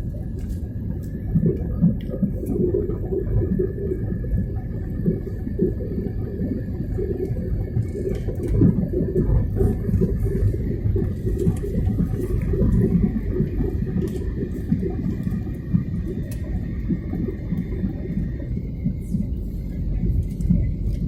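Steady low rumble of aircraft engines and airflow heard inside a passenger plane's cabin, with a faint high steady whine that stops near the end.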